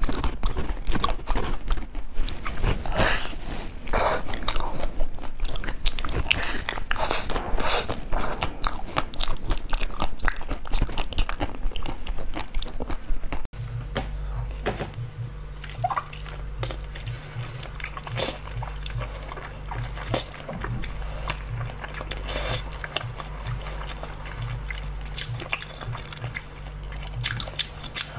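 Close-up eating sounds: biting and chewing food, with some crunching. About halfway through there is a cut to a quieter take, where bites and chewing go on over a low steady hum.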